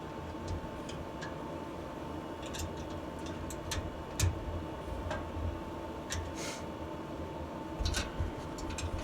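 Scattered small sharp clicks and taps of a spanner working on nuts and bolts, the loudest a little past four seconds and around eight seconds in, over a steady low hum with a faint steady whine.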